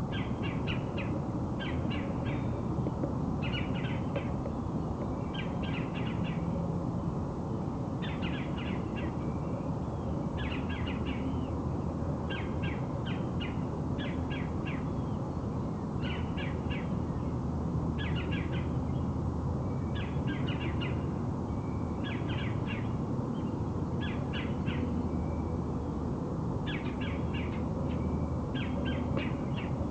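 A bird repeats a short rattling call, each a quick run of pulses, about every one to two seconds, over a steady low background rumble.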